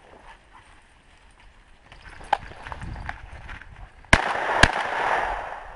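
Two shotgun shots about half a second apart, the first the louder, with an echo fading away after them.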